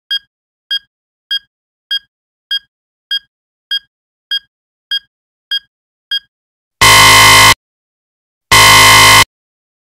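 Radiation-detector alarm sound effect from a prank phone app: about eleven short high beeps, a little under two a second, then two long, loud buzzer blasts near the end.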